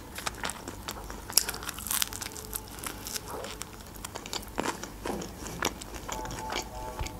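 Close-up chewing of a bite of toasted flatbread wrap: soft crunching, with small wet mouth clicks and crackles coming irregularly.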